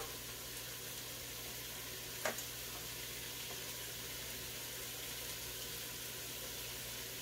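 Leeks sautéing in butter in a pot, a steady soft sizzle, with one light knock about two seconds in.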